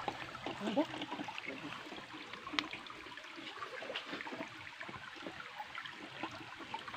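Shallow rocky stream trickling, with scattered small clicks and one sharper click about two and a half seconds in.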